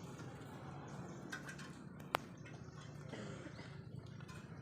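Faint steady background hum and noise, with one short sharp click about two seconds in.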